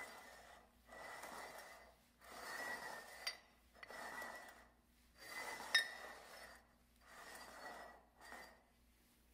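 Upside-down ceramic mugs being shuffled across a wooden floor: a run of soft scraping swishes about every second and a half, with two sharp clinks as mugs knock, about three seconds in and near six seconds.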